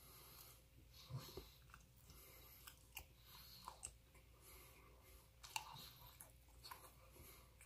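Faint close-up chewing of a sticky glutinous-rice dessert bun, with scattered small clicks and smacks of the mouth.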